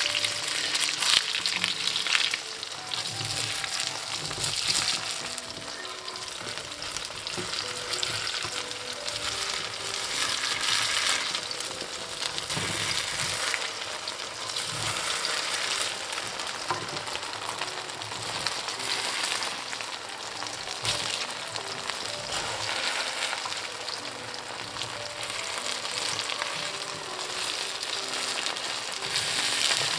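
Hot oil sizzling and crackling in a wok under a frying Teochew oyster omelette of sweet potato starch batter, oysters and egg, swelling and easing in waves. Now and then a metal spatula scrapes the wok as the omelette is loosened from the pan.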